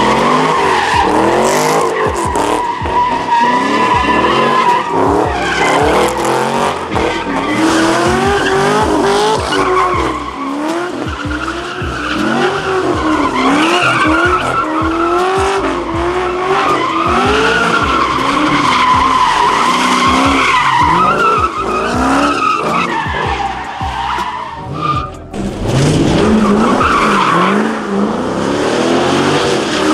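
A car spinning donuts: its engine revs up and down over and over under a steady high tyre squeal. The squeal drops away briefly about five seconds before the end, then comes back.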